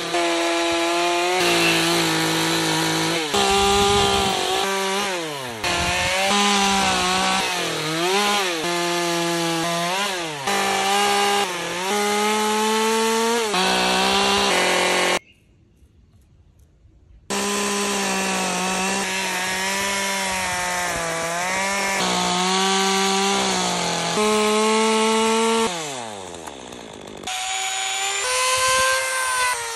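Stihl chainsaw running and cutting into a log, its engine pitch sagging and recovering again and again as the chain bites and is eased off, in a series of short edited takes with a brief silent break about halfway. In the last few seconds a handheld rotary carving tool whines at a higher pitch as it grinds detail into the wood.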